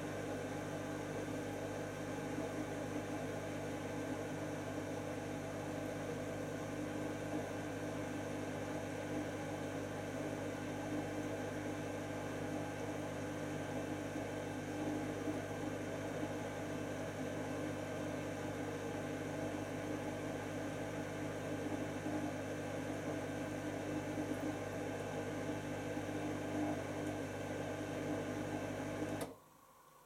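Bosch Classixx dishwasher running mid-cycle: a steady hum of the wash pump over the sound of spraying water, cutting off abruptly near the end as the machine moves between wash stages, just before its main wash.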